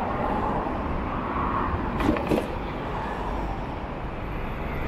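City road traffic noise, a steady rumble, with two sharp clicks about two seconds in.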